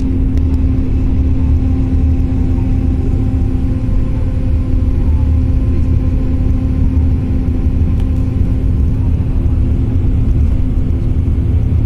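Steady drone of a vehicle travelling at highway speed on a wet road, heard from inside the cabin: a low road-and-engine rumble with one held hum over it.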